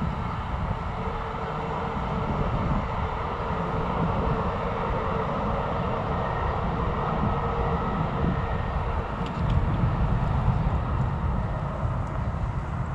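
Steady wind noise on the microphone with the tyre rumble of an electric bicycle rolling along a paved path, and a faint steady hum underneath.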